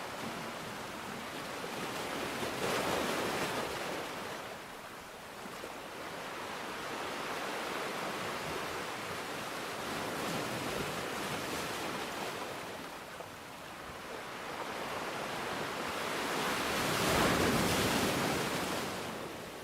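Ocean surf: waves breaking and washing in, a rushing noise that swells and fades in three slow surges, the last the loudest.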